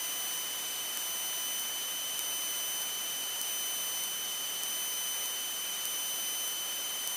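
Steady hiss from an aircraft audio intercom feed between transmissions, with a thin, high electronic whine held on a few steady pitches; no low engine drone comes through.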